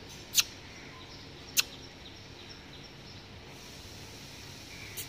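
Three short, sharp kissing squeaks made with the lips to call a cat, the last right at the end, over steady outdoor background noise.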